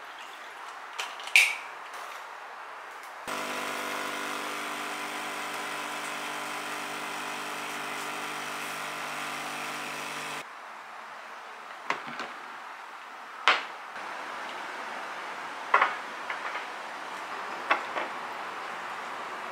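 Petrus espresso machine's pump humming steadily while pulling an espresso shot, starting a few seconds in and cutting off abruptly about seven seconds later. A sharp clink of glass comes before it, and several sharp clinks of a fork on a plate and glass follow.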